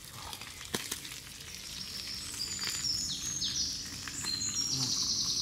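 Boxty potato pancakes sizzling in a frying pan, with a few faint clicks. From about two seconds in, a songbird sings a long, high run of trilled notes over it.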